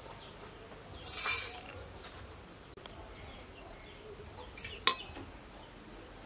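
Metal spoon clinking and scraping against a stainless-steel bowl while scooping wonton filling: a short scrape about a second in and a sharp clink near five seconds.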